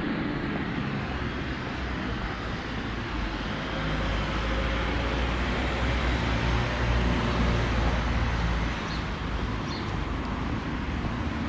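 Street traffic noise: a steady wash of passing vehicles, with a heavier low engine rumble that swells through the middle and eases near the end.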